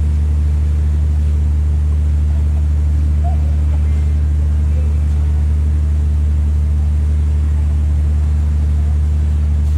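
A loud, steady low hum, like an engine running, that does not change, with faint voices underneath.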